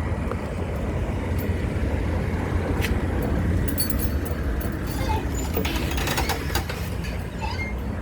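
Steady low rumble of a motor vehicle, with scattered light clicks and rustles, thicker in the middle.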